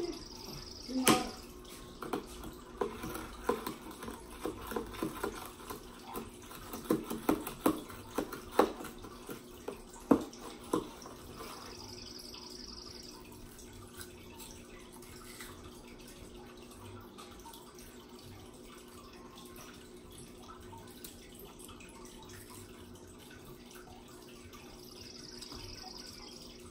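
Toddler sucking on an ice pop, with short wet slurps and lip smacks in the first half, over a steady low hum.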